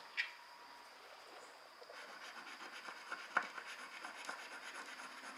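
A coin scratching the silver scratch-off panel of a paper card, rubbing back and forth in quick short strokes that start about two seconds in, with one sharper click partway through.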